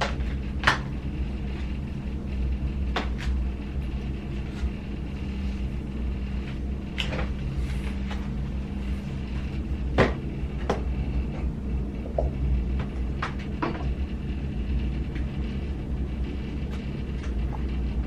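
Scattered sharp clicks and knocks of hands handling the PlayStation 5 console's hardware, over a steady low hum.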